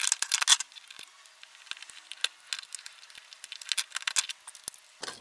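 Printed PLA plastic support material cracking and snapping as it is cut and pried away from a 3D-printed part with hand tools. A dense run of sharp clicks comes in the first half-second, then scattered single clicks follow.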